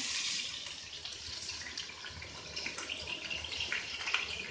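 Snakehead fish steaks sizzling as they fry in hot oil in a frying pan, a steady hiss with scattered pops and crackles as more pieces are laid in.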